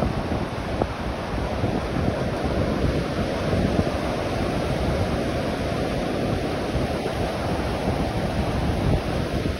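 Ocean surf breaking and washing onto a shallow sandy beach, a steady rushing noise, with wind buffeting the microphone as a low rumble.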